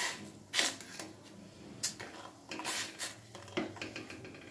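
A spoon stirring hot salted, turmeric and vinegar water in a stainless steel saucepan, scraping and knocking against the pan in four short strokes.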